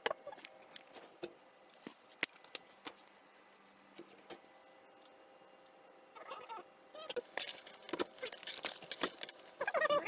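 Kitchen handling sounds: scattered light clicks and knocks of utensils and items on a counter, then about four seconds of dense crackly rustling and clatter as a plastic food packet is handled.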